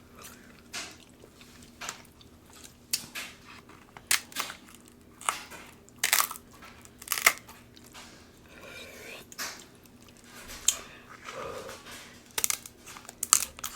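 King crab leg shells cracking and crunching as they are broken and pried open, in irregular sharp cracks with pauses between them.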